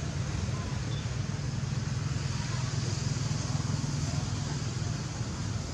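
Steady low rumble with a hiss over it, like background engine or traffic noise.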